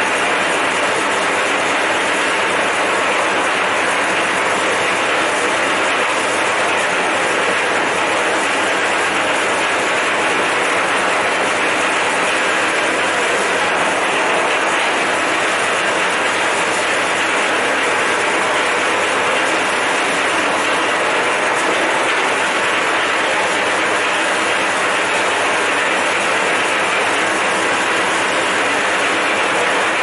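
V-KOF wire stripping machine, its 3 kW electric motor driving the cutting blade and rollers, running steadily with a loud, even mechanical noise while thin scrap wire is fed through it.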